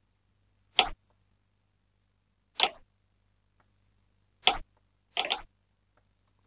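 Foley-style snare sample playing back alone from an FL Studio pattern: three single hits nearly two seconds apart, then a quick double hit.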